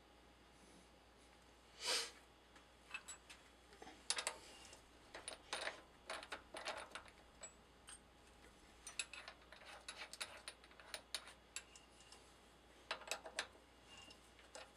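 Quiet, scattered light metallic clicks and clinks of hands working among small steel tools and a brass part, with one louder knock about two seconds in. No machine is running.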